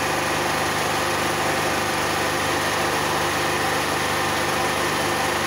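Steady, even hum of a running engine or motor.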